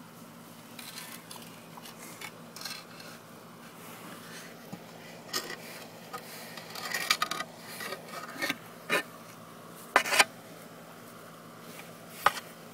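A shovel scraping and rubbing over a pig's bristly hide in irregular rasping strokes, which come thicker and louder in the second half, with a few sharp louder strokes near the end.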